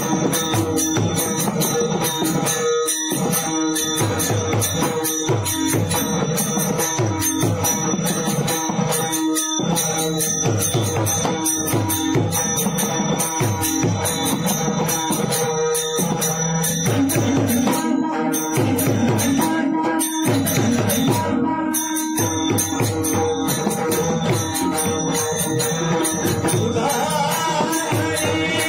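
Chakri bhajan: devotional group chanting over hand cymbals struck in a fast, steady rhythm, with a held drone beneath.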